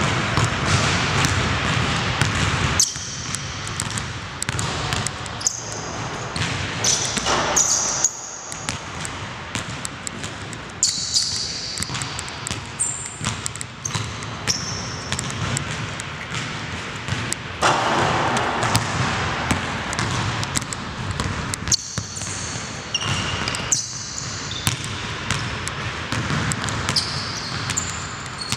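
A basketball bouncing on a hardwood gym floor during one-on-one play, with repeated sharp impacts and short high-pitched sneaker squeaks. The sound breaks off abruptly in a few places.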